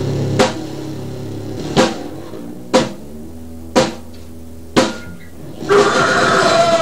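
Grind-noise band recording: single heavy drum hits about once a second over a low held tone, then a louder, dense section starts about six seconds in.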